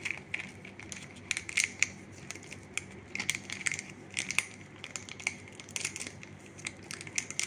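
Foil sachet crinkling in irregular short crackles as it is shaken and tapped to empty electrolyte powder into a plastic bottle.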